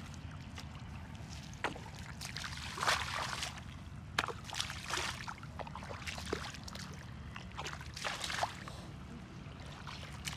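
Bare feet sloshing and splashing through shallow muddy water, in irregular splashes over a steady low background rumble.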